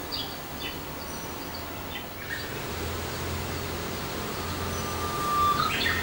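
Budgerigar chirping in short high notes, then one long steady whistle that swoops up at its end near the close.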